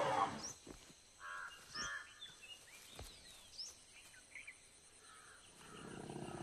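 Outdoor wildlife ambience: crows cawing a few times and small birds chirping, opening with a brief loud rushing blast and with a couple of sharp clicks. Near the end a low, steady rumbling call builds.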